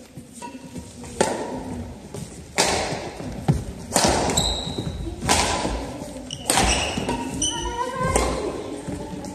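Badminton rackets striking the shuttlecock about six times, roughly once every second and a half, each hit echoing through a large gym. A few short high squeaks come between hits.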